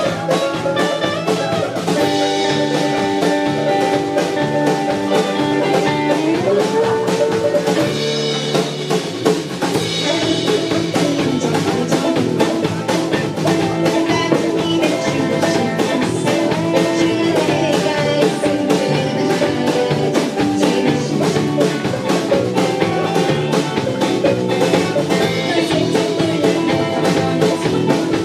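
Live rock band playing a song, with a drum kit keeping a steady beat under guitar and held instrument notes.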